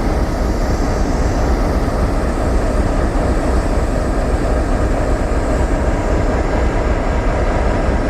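Freight train cars rolling past, a steady rumble and clatter of steel wheels on the rails.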